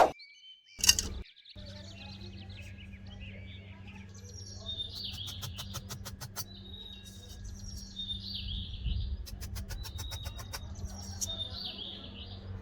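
A bird chirping in a short phrase repeated every couple of seconds, over a steady low hum, with runs of rapid sharp clicks.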